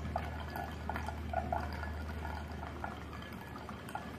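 Hot water poured in a thin stream from a gooseneck kettle onto coffee grounds in a cone dripper, the coffee trickling into a glass server below, over a steady low hum. The pour stops near the end.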